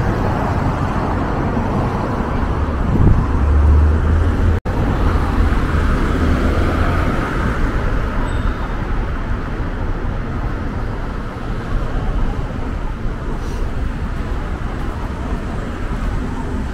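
City street traffic: cars passing on the road alongside, with a heavier low rumble from a passing vehicle about three to four seconds in. The sound cuts out for an instant just after that.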